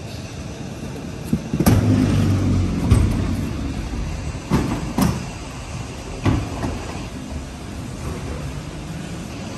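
Manual pallet jack rolling a loaded pallet over a steel diamond-plate dock plate into a box truck: a sharp metallic knock, then about a second of heavy rumbling, followed by several more clanks as the wheels cross the plate and truck floor.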